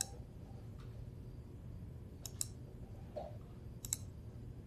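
Computer mouse clicking: one click at the start, then two quick double-clicks about two and four seconds in, over a faint low hum of room tone.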